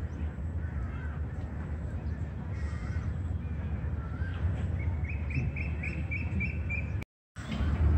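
Birds calling over a steady low rumble, with a quick run of about eight short, evenly repeated calls in the last few seconds. The sound breaks off completely for a moment near the end.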